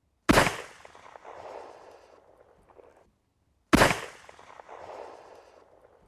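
Two shots from a 26.5mm flare pistol, about three and a half seconds apart, each a sharp crack followed by a fading tail.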